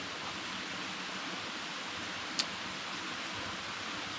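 Steady rush of a small mountain stream's flowing water, with a single sharp click about two and a half seconds in.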